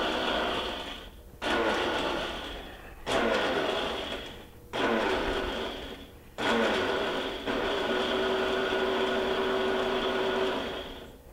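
Countertop blender crushing ice with espresso and sugar, its motor running in pulses. Four runs of about a second and a half each fade and then kick back in abruptly. A longer, steadier run of about four seconds follows and winds down near the end.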